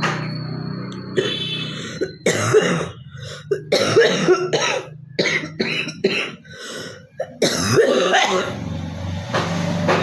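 A woman coughing repeatedly and clearing her throat to bring up phlegm from a real cough, in a dense run of short harsh coughs starting about two seconds in.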